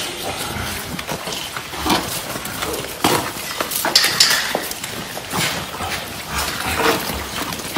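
A group of newly weaned piglets, 3 to 5 weeks old, grunting and moving about on a concrete floor, with short scrapes and taps scattered throughout and a louder burst about four seconds in.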